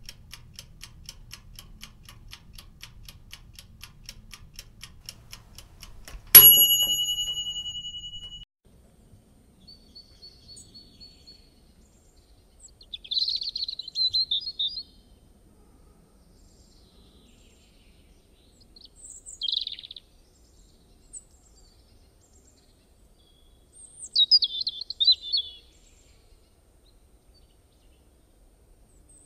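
Fast, even ticking for about six seconds, then a single bright bell ding that rings out and fades over about two seconds. After it come short bird chirps in scattered bursts, with quiet gaps between them.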